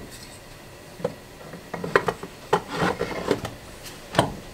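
Small wooden objects being handled against a wooden shelf: a run of clattering knocks and scrapes, then one sharp knock near the end.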